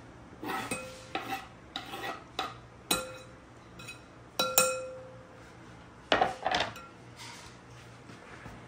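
Kitchen knife knocking and scraping on a wooden cutting board and a glass bowl as chopped cilantro is scraped off and limes are halved. The sounds are a series of sharp clinks and knocks, some with a short ring, and the loudest come about four and a half seconds in.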